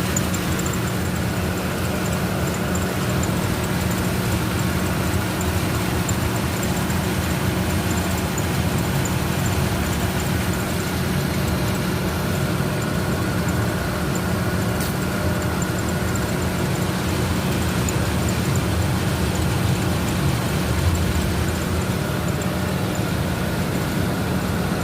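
Toyota 1NZ-FE inline-four engine idling steadily with a faint steady whine on top, noise coming from the engine's drive belt.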